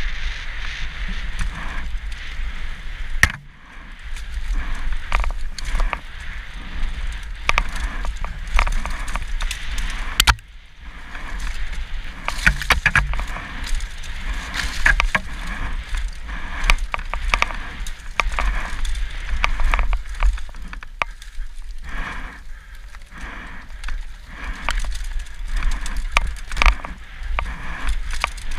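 Mountain bike ridden fast downhill over gravel and forest dirt trail, heard from the rider's helmet: tyres crunching and the bike rattling, with frequent sharp knocks over a steady low rumble. The noise dips briefly twice, about three and ten seconds in.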